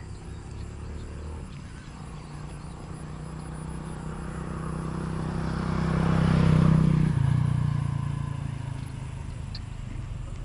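An engine-driven vehicle passing by: its hum swells to its loudest about six to seven seconds in, drops in pitch as it goes past, then fades away.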